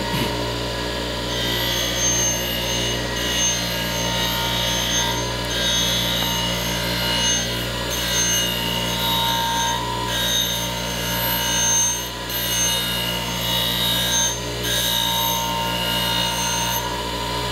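A 3600 RPM bench grinder fitted with a fine Bear-Tex deburring wheel runs at a steady speed. The steel bevel of a short-handled adze is held lightly against the wheel, and the grinding rasp swells and eases as the edge is worked up toward the cutting edge.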